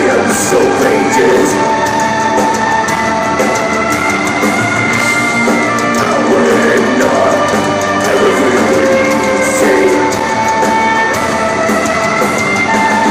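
Live heavy metal band playing at full volume: distorted electric guitar, drum kit and a violin carrying long held melody notes over them. The sound is a loud crowd-level recording in a reverberant hall.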